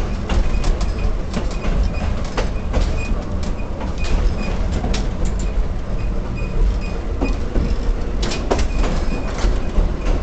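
A restored 1923 J.G. Brill electric streetcar rolling along its track, heard from inside the car: a steady low rumble with frequent knocks and rattles, and a faint high tone that comes and goes in short dashes.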